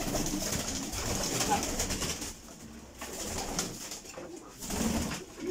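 Domestic pigeons cooing in a loft, along with wing flutters and rustling as the birds move around the breeding cages.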